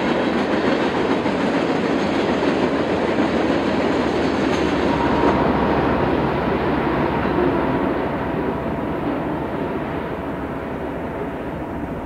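Diesel freight train running on the rails: a steady rolling noise of wheels and cars. About five seconds in the sound changes and then slowly fades as the train moves away.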